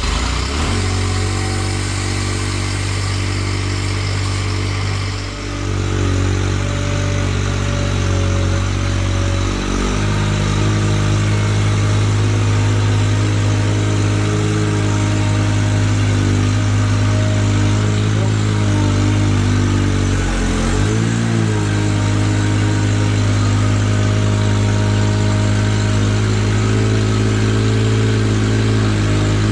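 A Ventrac 4500Z compact tractor's engine running steadily just after starting. It runs somewhat faster and louder from about ten seconds in, and briefly sags and recovers about twenty seconds in.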